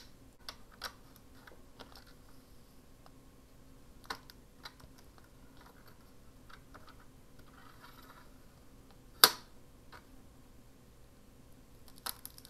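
Razor craft knife cutting through paper: scattered light clicks and taps, with one sharp, louder click about nine seconds in.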